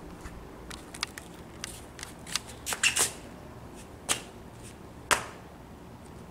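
Irregular handling noise from a handheld camera being moved about: about a dozen short taps and scuffs, the sharpest near three, four and five seconds in.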